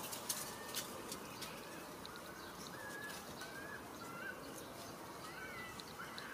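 Several short, high calls that rise and fall in pitch, coming one after another over a steady background hiss, with a few sharp clicks in the first second.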